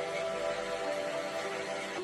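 Soft background music with held, slowly changing notes.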